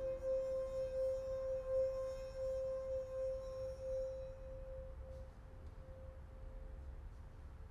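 A wine glass sung by a finger rubbing its rim: one steady high tone, pulsing slightly, that fades away over the last few seconds.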